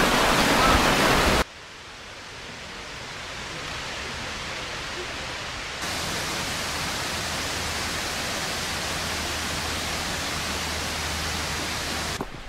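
Steady rushing of creek water. It is loud at first, drops sharply about a second and a half in, then steps louder again about six seconds in.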